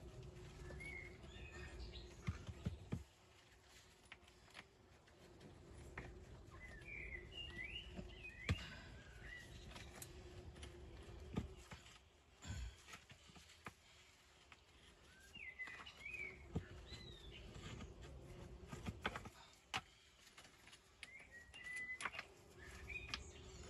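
Birds chirping faintly in short bursts every several seconds, with sharp clicks of stone being knocked and set against stone now and then as a dry stone wall is built up by hand; the loudest knock comes about a third of the way through.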